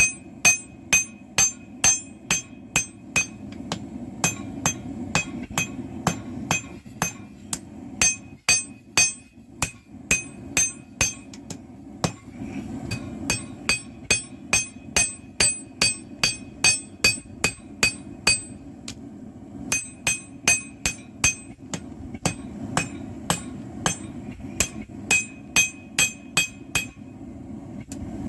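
Blacksmith's hammer forging steel on an anvil, striking in runs of about two to three blows a second, each blow ringing, with short pauses between runs. A steady low rumble runs underneath.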